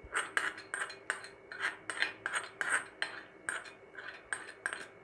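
A steel spoon scraping and clinking inside a small black tadka pan, emptying the last of the tempering into the dal, in a quick irregular run of short strokes, about three a second.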